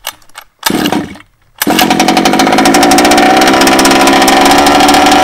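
HPI Baja 1/5-scale RC car's two-stroke petrol engine being pull-started: a short burst from the pull-start cord, then about a second and a half in the engine catches and runs loudly and steadily. It starts with the choke opened, after the flooded cylinder was cleared of excess fuel.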